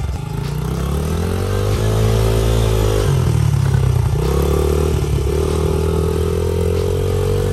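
Small dirt bike engine revving under load as the bike pulls through mud, its pitch climbing, dropping about three seconds in, then climbing again and holding.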